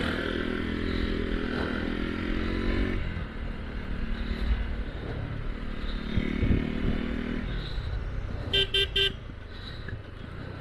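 Bajaj Pulsar NS200 motorcycle engine running under throttle through city traffic, picking up in the first few seconds and again around six seconds in, over a low rumble of wind and road. Near the end, a vehicle horn beeps three times in quick succession.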